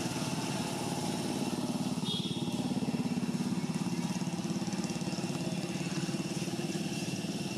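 A small engine idling steadily with an even, rapid low pulse. A brief high chirp sounds about two seconds in.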